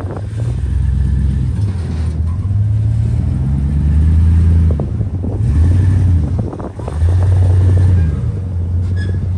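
Chevrolet Silverado pickup's engine revving in repeated bursts and dropping back between them as the truck creeps up the ramps onto a car trailer; the truck is broken but still drives a little.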